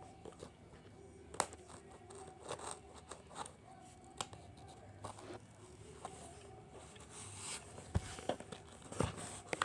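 A cardboard shipping box being cut and torn open by hand, with scattered scrapes, clicks and rustles.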